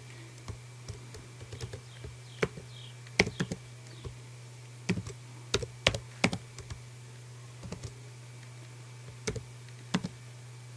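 Computer keyboard typing: single keystrokes and short irregular runs of clicks with pauses between them, over a steady low hum.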